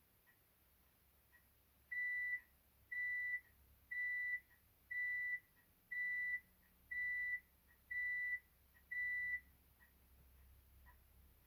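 BlackBerry 7100v's speaker playing a plain beeping ringtone: eight evenly spaced high beeps on one pitch, about one a second and each half a second long. A few faint short blips come before and after.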